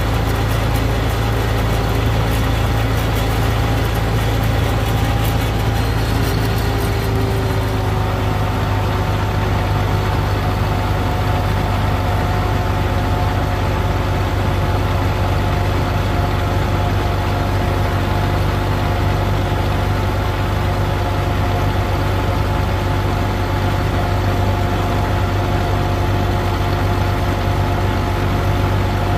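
Farm tractor engine running steadily while driving down the road, heard from on board: a loud, even low drone whose pitch shifts slightly about seven seconds in and then holds.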